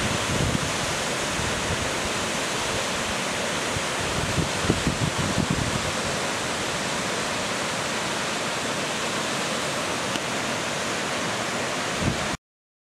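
Waterfall's steady rush of falling water, with a few low gusts of wind on the microphone about five seconds in. The sound cuts off suddenly near the end.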